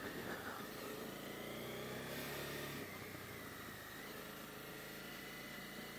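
Honda CB250R's single-cylinder engine running as the motorcycle rides uphill on a forest road, heard muffled through a helmet camera's microphone. The engine note drops about three seconds in.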